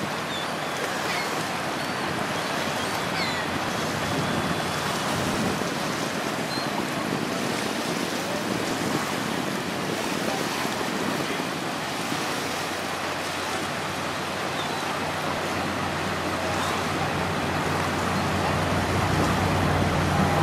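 Choppy river water lapping and splashing with wind on the microphone. From about two-thirds of the way in, a low, steady engine hum grows louder as a passenger tour boat comes close.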